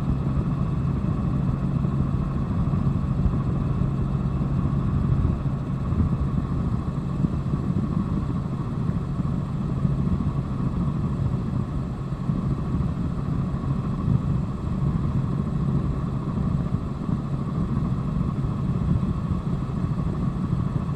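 Helicopter engine and rotor running steadily, heard from inside the cabin: a constant low drone with a fainter steady higher hum over it.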